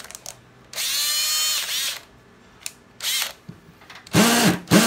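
Cordless hammer drill run with no load in hammer mode. The motor spins up and back down once about a second in, blips briefly around 3 s, and from about 4 s is pulsed in quick repeated trigger bursts that make the loudest hammering buzz.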